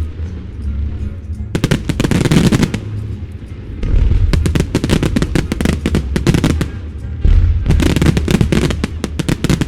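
Fireworks display: rapid volleys of shots, bursts and crackle from firework batteries, in dense clusters with short lulls between them, the first starting about a second and a half in. Accompanying show music runs underneath.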